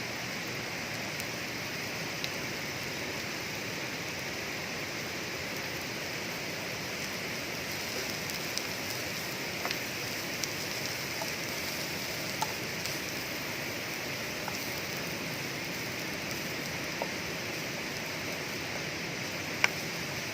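Steady rush of water, an even hiss with a few faint scattered ticks.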